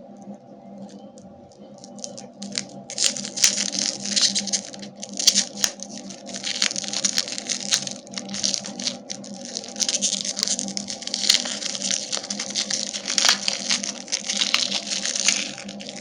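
Candy wrappers being crinkled and torn open in close, repeated rustling bursts with small clicks, over a steady low hum.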